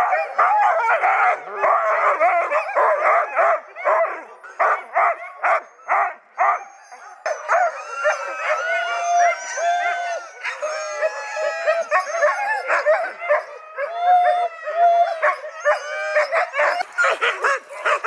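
A harnessed team of sled-dog huskies barking, yipping and howling together, excited and eager to run. Quick bursts of barking come first; from about the middle, overlapping howls that rise and fall in pitch take over, and the barking picks up again near the end.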